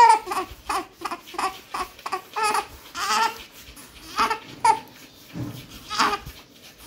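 Newborn baby fussing: a string of short, broken cries and whimpers about every half second, with a louder cry about six seconds in.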